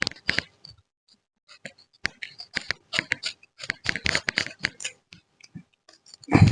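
Rubber tapping knife shaving a groove in rubber tree bark: runs of short, scratchy clicks in separate strokes with brief pauses between them. A heavier thump comes near the end.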